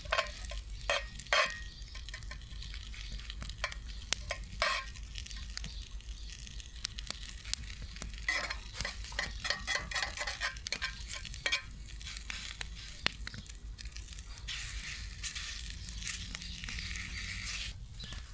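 Scrambled eggs sizzling in a hot pan over a campfire, with a utensil scraping and clicking against the pan as they are stirred. The sizzle swells for a few seconds near the end.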